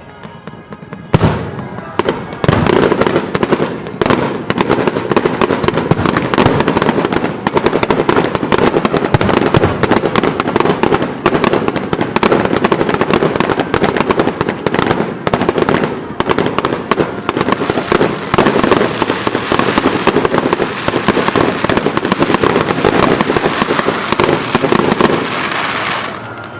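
Fireworks going off: two single shell bursts in the first couple of seconds, then a dense, continuous barrage of bangs and crackling for over twenty seconds that dies away near the end.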